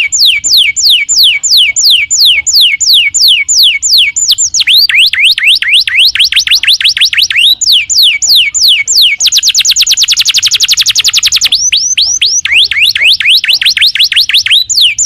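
Canary singing a long, loud song made of rows of fast repeated sweeping notes, about five a second at first and quicker from about a third of the way in. In the middle comes a very rapid, even trill lasting about two and a half seconds, then the sweeping notes return.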